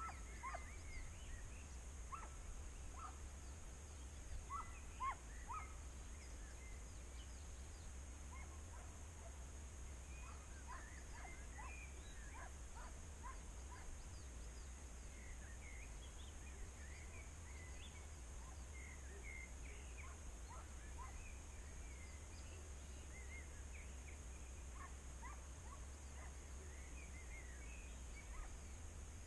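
Faint, scattered short animal calls, coming in loose clusters over a steady low background hum.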